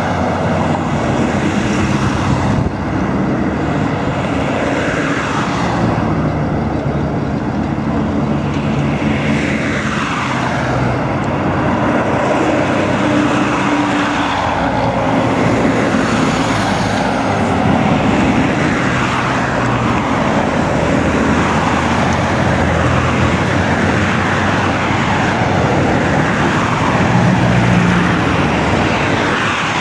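Road traffic: cars, pickups and trucks driving past one after another, engines running and tyres on the road. Several pass-bys fall in pitch as vehicles go by.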